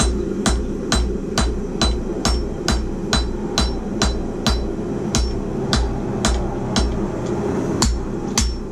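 Hand hammer striking red-hot steel on an anvil in a steady rhythm, about two blows a second, some blows leaving a brief high ring from the anvil. A steady low hum runs underneath.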